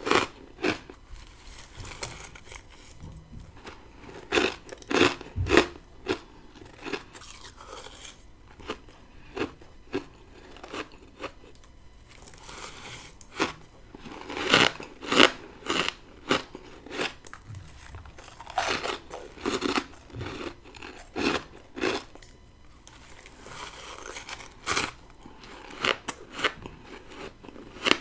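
Frost from a deep freezer being bitten and chewed: a series of sharp, crisp crunches in clusters, with softer crunching chews between bites.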